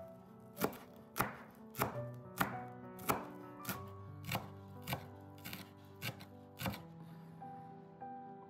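Chef's knife chopping fresh dill and parsley on a wooden cutting board: about eleven even strikes, a little more than half a second apart, stopping about seven seconds in.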